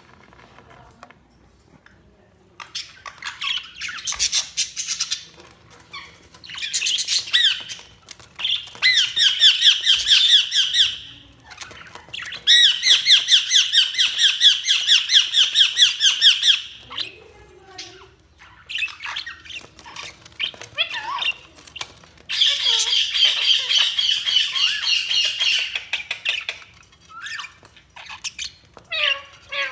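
Budgerigars chattering and warbling in rapid runs lasting a few seconds each, with quieter pauses and scattered short chirps between them.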